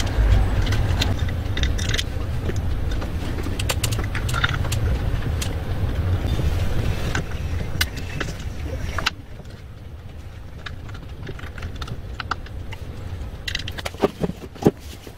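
Small metal parts and tools clicking and clinking as a four-stroke brush cutter's valve rocker arms and head parts are fitted by hand. A steady low rumble underneath cuts off abruptly about nine seconds in, and a few louder knocks come near the end.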